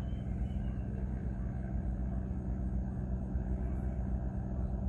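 Steady low engine drone, unchanging throughout.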